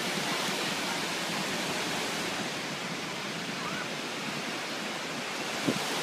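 Surf on a beach: a steady rush of small waves breaking and washing in, with a faint short call about midway through and a brief thump near the end.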